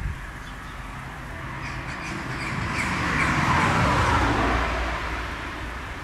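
A car passing on a nearby road: a rising and falling rush of tyre and engine noise that peaks about four seconds in, with faint bird chirps over it.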